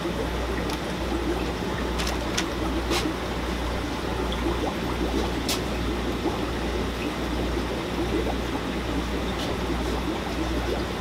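Steady trickling and bubbling of aquarium water, with a constant low hum underneath and a few faint clicks.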